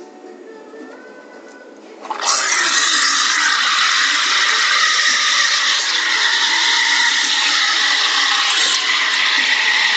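Espresso machine steam wand opening with a sudden hiss about two seconds in, then hissing loudly and steadily as it steams milk in a stainless steel frothing pitcher for a cappuccino.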